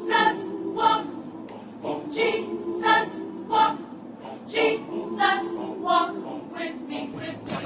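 Gospel choir singing in short, punchy phrases that come at a fairly steady rhythm.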